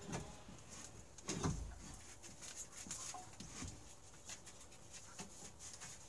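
Faint, scattered clunks and scrapes of parts being handled in a snowmobile's engine bay as the engine is worked loose, with one louder, lower sound about a second and a half in.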